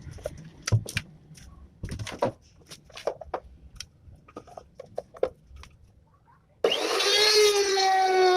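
Scattered light knocks and clicks of handling, then about six and a half seconds in an NRT Pro trim router switches on and runs with a loud, steady high whine.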